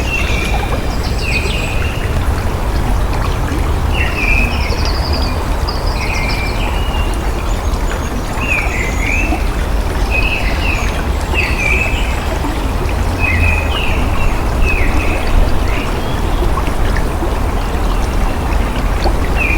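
Water running steadily, with a deep rumble underneath, while small birds chirp over it in short calls, roughly one a second.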